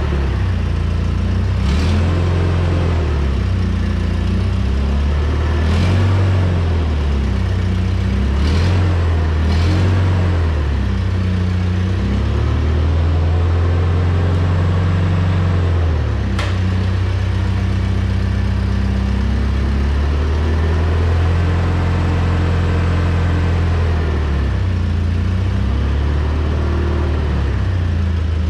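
Old Hyster 30 forklift's engine running while the truck is driven about, its pitch rising and falling every few seconds as the throttle changes. A few short sharp clicks and clunks sound over it, the sharpest about sixteen seconds in.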